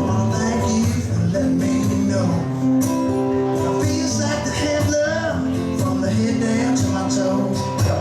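Live band playing an instrumental stretch of a rock song: electric guitar and bass over drums, with regular cymbal strokes.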